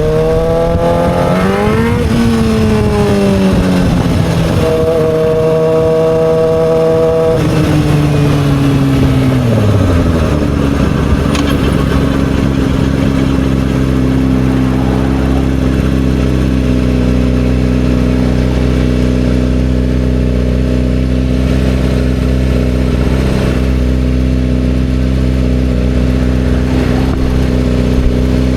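2007 Yamaha R6's inline-four engine rising and falling in revs, holding a high steady note for a couple of seconds, then winding down about ten seconds in to a steady idle.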